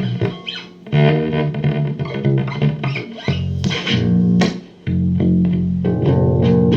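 Guitar music with bass guitar notes, played through an effects unit. It drops away briefly about half a second in and again just before five seconds, then carries on with sustained low notes.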